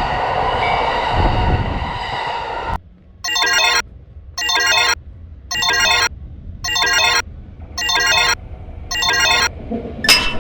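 A train running past, which cuts off abruptly after about three seconds. Then an electronic ringing tone sounds in six short trilling bursts about once a second, like a telephone ring, with a brief swish near the end.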